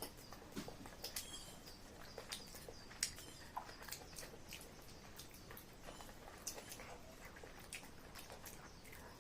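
A person chewing chow mein noodles: faint, irregular wet clicks and lip smacks, a few every second.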